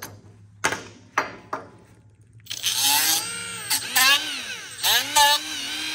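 A hand deburring tool scrapes a few strokes around the cut edge of a metal tube. About two and a half seconds in, a Milwaukee cordless right-angle die grinder with a small sanding disc starts. Its pitch dips and recovers over and over as it is pressed against the notched tube edge to smooth the burrs.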